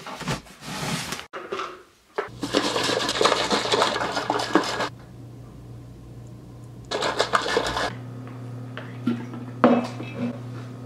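Short cut-together bursts of kitchen handling noise: containers and dishes rattling and clattering, each stopping abruptly at an edit. A steady low electrical hum runs underneath.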